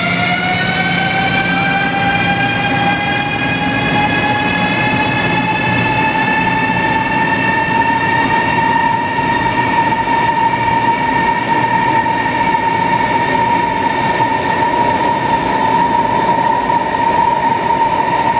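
CRH high-speed electric train pulling out, its traction motors whining in a pitch that rises over the first several seconds and then holds steady, over the steady rolling noise of the train.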